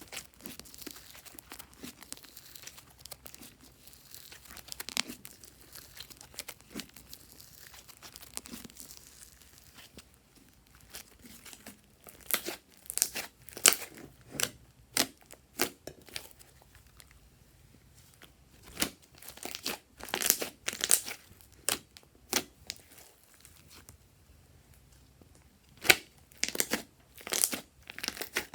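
Slime being squished and poked by hand: a soft crackling at first, then from about twelve seconds in a run of sharp, irregular wet clicks and pops.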